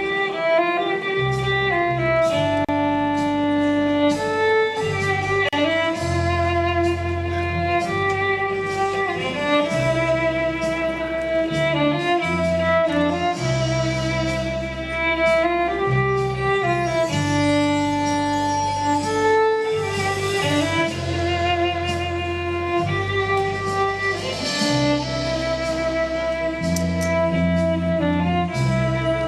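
Live band playing an instrumental passage: a held, singing lead melody over a moving bass line, with no vocals.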